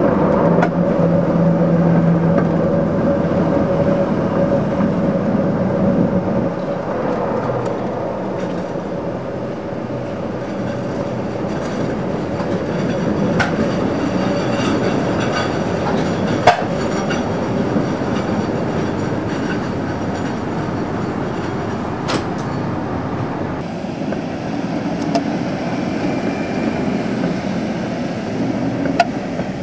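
PCC streetcar running along the track, heard from on board: a steady running hum that fades after about six seconds, wheel and rail noise, and a few sharp clicks. Near the end the sound changes as the car is heard from beside the track.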